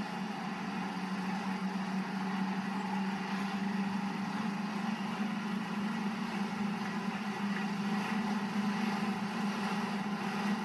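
Toyota Toyoace PK31 truck's engine running with a steady drone while driving along the road, heard from inside the cab, with road noise beneath it.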